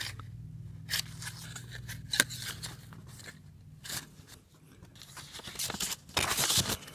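View-Master reels in their paper sleeves being handled and sorted: a few light clicks and taps, then a short rustle of paper and card near the end.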